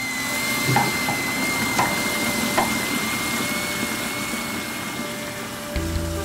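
Stovetop kettle at the boil: a steady hiss of steam under one steady high whistle, with three light clicks in the first few seconds.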